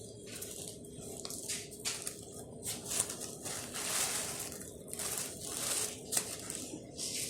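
Dove's wing being twisted off by hand: irregular crunching and crackling of feathers and the wing joint, which is hard to break.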